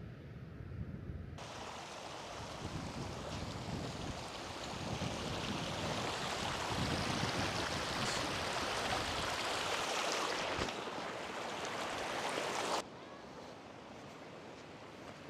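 Rushing water of a mountain river or waterfall, a steady hiss that starts suddenly about a second in, grows a little louder and cuts off sharply near the end. Before and after it only a low wind rumble is left.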